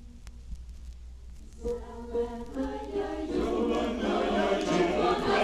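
Choir singing. After a quiet second and a half, voices come in one after another in staggered entries, and the sound builds steadily louder.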